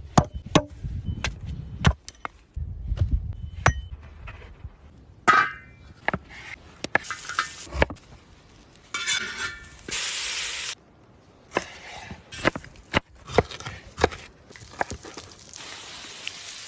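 A run of sharp chopping strikes, about two a second, of a hatchet on wood against a wooden block. Later come scattered knocks of cutting and handling food on a wooden board, broken by stretches of hissing.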